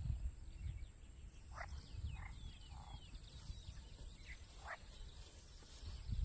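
Quiet waterside ambience: a handful of short, separate bird calls and a few thin chirps over a low rumble, with a faint steady high tone behind.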